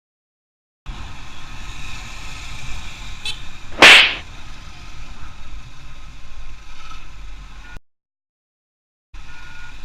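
Riding noise picked up by a microphone inside a motorcycle helmet: wind rush over a low engine and road rumble. About three seconds in comes one very loud, sharp burst lasting a fraction of a second, and the sound drops out to dead silence at the start and for over a second near the end.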